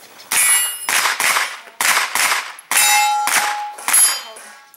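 Pistol-caliber carbine firing about eight shots in quick succession, roughly two a second. Several shots are followed by the ringing clang of a hit steel target.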